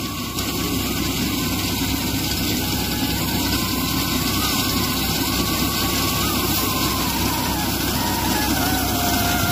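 Tractor engine running steadily while the tractor drives a rice reaper cutting standing paddy.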